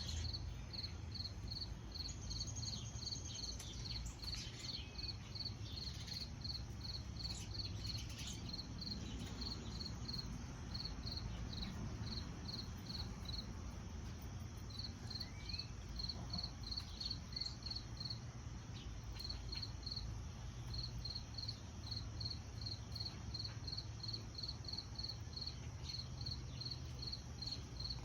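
A cricket chirping in a steady run of short, same-pitched chirps, about three a second, with a few brief pauses, over a low steady rumble.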